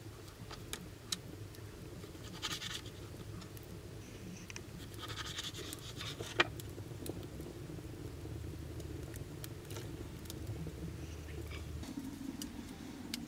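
Knife cutting raw meat on a wooden cutting board: short scraping strokes and scattered small clicks, with one sharp knock of the blade on the board about six seconds in.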